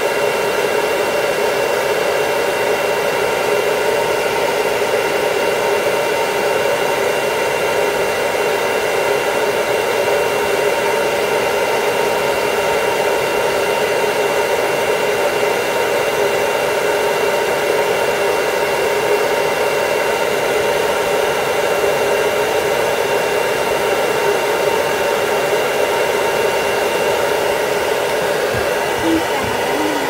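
Hair dryer running steadily as it dries a toy poodle's coat, a constant rush of air with a steady whine over it.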